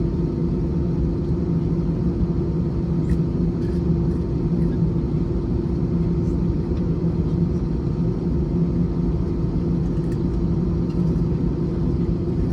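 Airliner cabin noise inside an Airbus A321 on the ground before takeoff: a steady low rumble with a constant hum from the engines running at low power, and a few faint ticks.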